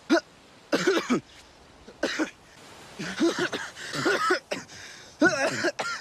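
A young man coughing and clearing his throat in several hoarse bouts, as if food or drink has gone down the wrong way.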